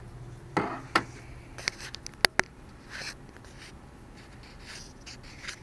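Handling noise: scattered light clicks and brief brushing scrapes, with a rustle about half a second in and a few sharp clicks around two seconds in.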